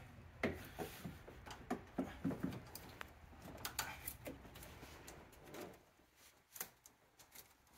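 Pliers and a hose clamp clicking and scraping against a rubber intake hose as the clamp is opened and worked over the hose end: scattered short clicks and rubbing, sparser after about five seconds.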